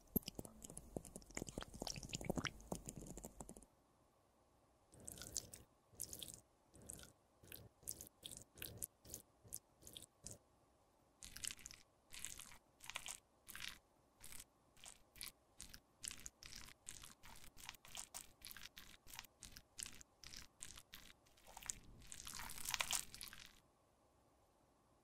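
Faint wet crackling and squelching as thick liquid foundation is pushed out of a syringe into a cushion compact. After that comes a long run of small wet clicks, about two or three a second, as a glass rod works the foundation into the cushion sponge, and a louder crackling stretch near the end.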